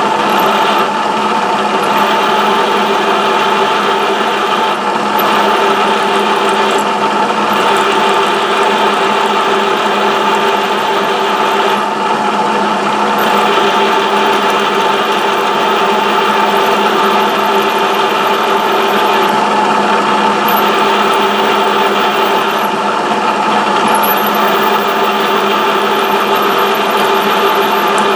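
Milling machine spindle running steadily with a constant hum while a drill is peck-fed into an aluminum blank.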